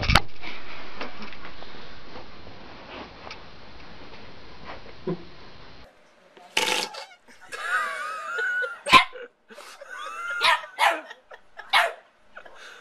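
A sharp knock and a fading hiss of handling noise, then, from about six seconds in, a small white dog barking and yipping over and over, with pitched whines between the barks.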